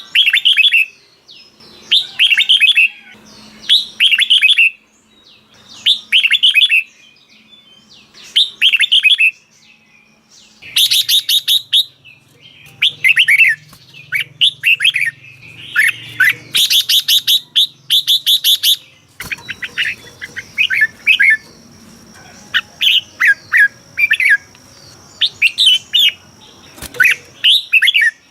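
Red-whiskered bulbul song: short, loud, bubbling whistled phrases, at first one about every second and a half, then faster runs with high twittering from about a third of the way in. A faint steady high tone joins the background about two-thirds of the way through.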